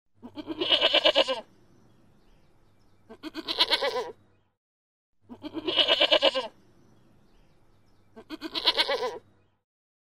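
Domestic goat bleating four times, each bleat about a second long with a wavering, quavering pitch, a couple of seconds apart.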